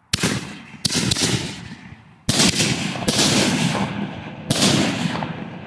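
Excalibur reloadable aerial firework shells going off: five sharp booms spread over a few seconds, each trailing off in a long rolling echo.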